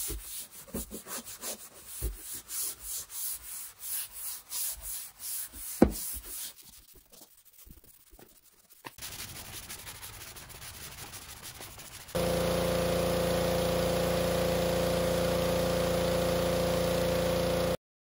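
Kitchen sponge scrubbing a soapy painted metal garage door in quick, rhythmic back-and-forth strokes, with one sharp thump about six seconds in. For the last six seconds or so a loud, steady hum of fixed pitch takes over, then stops abruptly.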